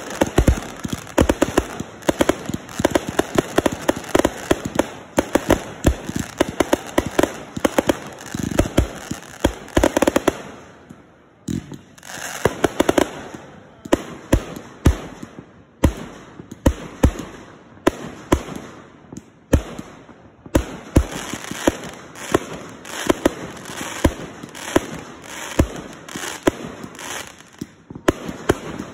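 Aerial fireworks going off in quick succession: repeated launch thumps and bangs of bursting shells, with crackling between them. The barrage dips briefly about eleven seconds in, then carries on.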